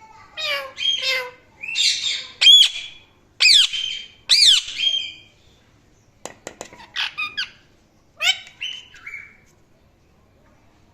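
Indian ringneck parrot calling: a run of harsh squawks and high, looping whistled notes, then a few sharp clicks and short chirps, falling quiet about nine seconds in.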